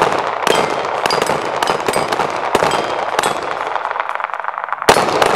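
Handgun shots fired in quick succession at steel knock-down plates, with the plates ringing as they are hit, and one last loud shot near the end.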